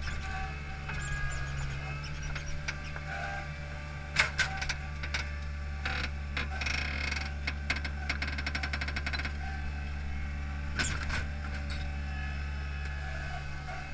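Paving machine's engine running steadily with its hydraulics working the boom. Knocks and, about halfway through, a few seconds of fast rattling come from the steel paving-stone clamp and its load of concrete pavers.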